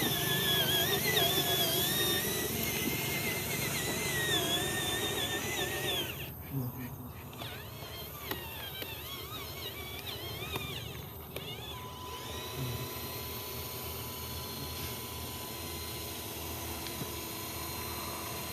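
Small electric motors of RC construction models whining, their pitch wavering up and down as they speed and slow. The whine drops away about six seconds in. A steady thin high tone sets in just before the last third.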